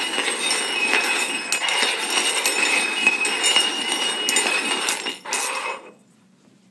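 Stainless steel cups being slid and shuffled across a hard floor, scraping and clinking with a faint metallic ring. A short final burst of sliding ends about a second before the close.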